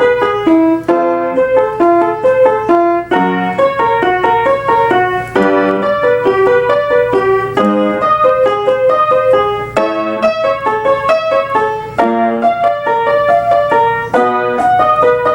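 Piano playing the accompaniment to a "me, me, ma" vocal warm-up exercise: a short note pattern repeated about every two seconds, each repeat on a different pitch to walk the singer through the range.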